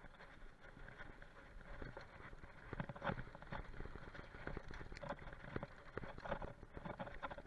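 Mountain bike rolling downhill over a bumpy dirt-and-grass track, with quick irregular knocks and rattles from the bike that grow louder and denser as it picks up speed.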